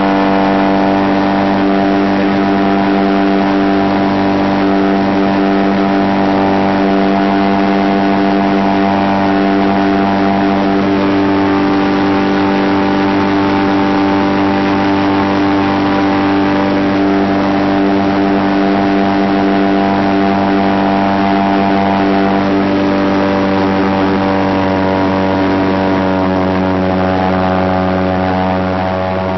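A light aircraft's engine and propeller drone steadily in cruise, heard from inside the cockpit, a loud even engine note with many overtones over rushing noise. It eases slightly near the end.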